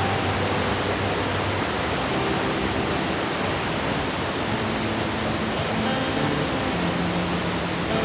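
Steady rush of water from a rocky mountain stream and a 20 m waterfall, with soft background music holding low sustained notes underneath.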